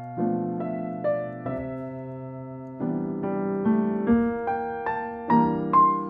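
Slow, gentle solo piano background music: single notes struck about every half second over held chords, the melody climbing higher near the end.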